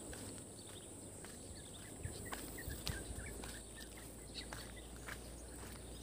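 Footsteps on a paved road, a faint irregular tapping, over a steady high insect drone, with a short run of bird chirps about two to three seconds in.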